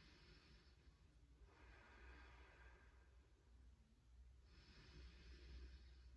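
Faint, slow breathing of a woman resting in child's pose, one breath about every three seconds, over a low steady hum.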